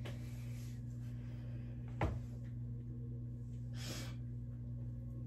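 Quiet room tone with a steady low hum, broken by a single sharp click about two seconds in and a brief rustling hiss about four seconds in.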